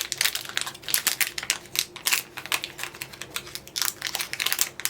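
Rapid, irregular crinkling and crackling of mystery pin blind-box packaging being handled and opened.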